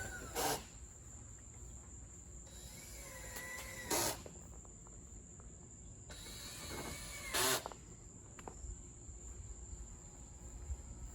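Outdoor background with a steady high-pitched drone of insects. Three short, sharp noises come about three and a half seconds apart, with a few faint chirps between them.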